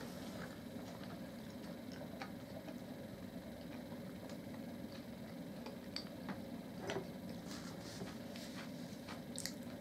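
Quiet eating at a table: a few faint, scattered clicks of cutlery against glass dishes over a steady low hum.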